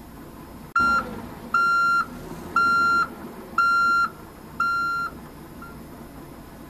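Vehicle reversing beeper sounding five times, evenly at about one beep a second, each beep about half a second long at one steady pitch. A sharp click comes just before the first beep, and a steady low hum runs underneath.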